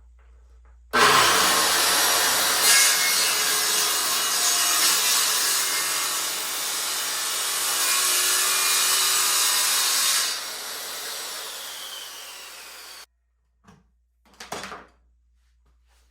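Corded circular saw starting up and crosscutting a board, loud and steady for about nine seconds. Near ten seconds it goes quieter as the blade clears the wood and runs free, then stops abruptly; two short knocks follow near the end.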